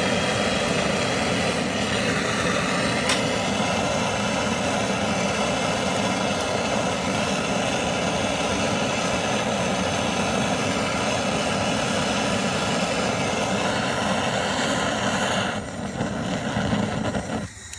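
BernzOMatic trigger-start hand torch burning with a steady rush of gas flame while heating a radiator fitting for soldering, with one sharp click about 3 s in. The flame noise weakens near the end and then stops abruptly.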